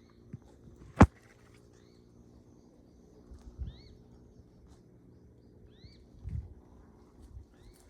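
A bird repeating short, upward-hooked chirps every second or so. A sharp click about a second in is the loudest sound, and there are a few dull low thuds.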